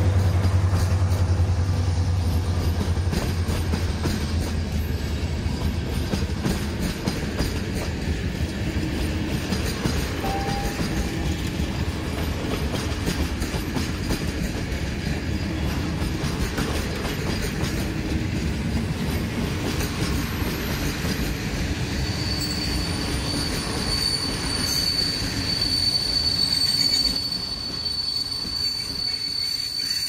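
Passenger coaches of a long train rolling slowly past, with the steady rumble and clatter of wheels on the track. The locomotive's diesel engine hum fades in the first few seconds. From about two-thirds of the way in, a steady high-pitched wheel squeal joins the rolling noise.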